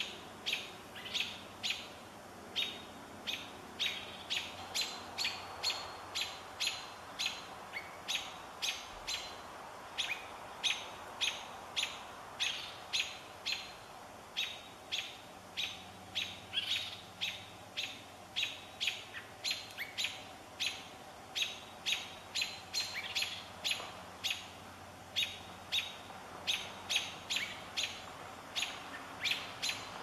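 Sharp, high chip calls from a small animal, repeated steadily about twice a second.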